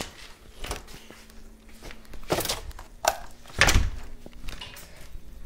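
A few dull thumps and knocks, spaced apart, the loudest a heavy thump in the second half.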